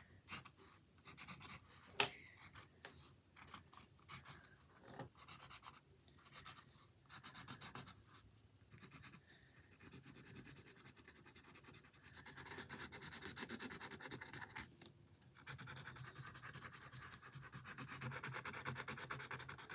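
Marker scribbling back and forth on a canvas, colouring in: a dry, scratchy rubbing. It comes in short strokes at first, with one sharp click about two seconds in, then runs as steadier, fast strokes through most of the second half, with a brief pause.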